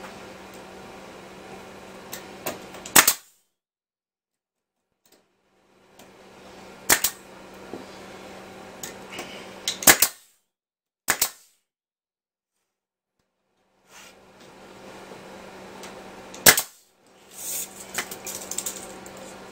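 Pneumatic nail gun driving nails into pallet-wood boards, a series of single sharp shots a few seconds apart, with a quick double shot about eleven seconds in. Light clatter of the boards being handled near the end.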